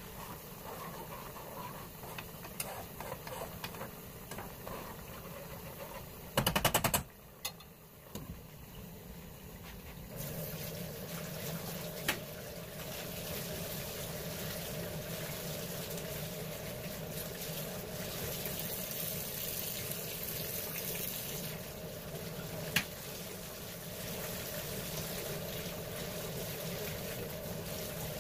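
Kitchen water sounds: a pot of seafood boil bubbling, then a steady rush of water, like a running tap, that starts suddenly about ten seconds in. A quick burst of rattling taps comes about six seconds in, with single clicks later.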